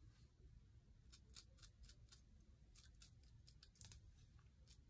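Faint quick scratchy strokes of a comb through the wig's hair, starting about a second in and repeating about four times a second.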